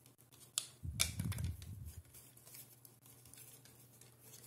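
Black plastic Raspberry Pi 3 case being handled and its lid snapped into place. Two sharp plastic clicks come about half a second and a second in, with low rubbing handling noise for about a second after, then light ticks of the plastic being turned in the hands.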